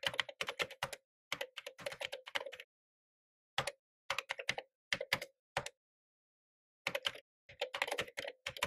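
Typing on a computer keyboard: runs of quick key clicks broken by two pauses of about a second.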